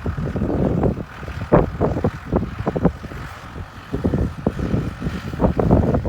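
Strong wind buffeting the microphone: a heavy low rumble with irregular crackling gusts.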